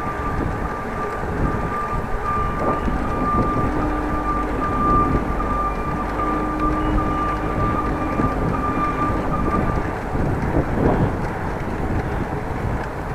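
Bicycle riding noise, with wind and tyre rumble picked up by a bike-mounted action camera. A steady high whine runs through it and stops about three-quarters of the way through.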